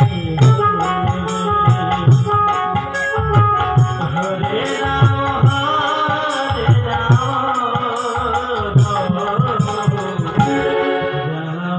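Bengali kirtan devotional music played live: a khol barrel drum beats a steady rhythm under a keyboard melody, with bright metallic ticks keeping time and a man's voice singing over it.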